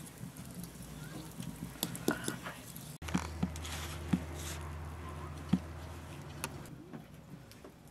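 Open wood fire crackling under an iron griddle baking flatbread, with scattered sharp pops. A low steady hum comes in about three seconds in and fades out after about six and a half seconds.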